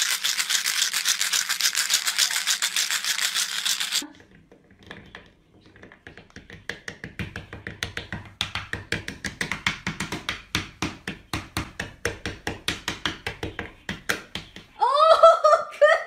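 A fast, dense rattling for the first four seconds. After a short hush comes a white cockatoo's beak tapping and gnawing on wood, several quick taps a second for about eight seconds. Near the end there is a loud, wavering call.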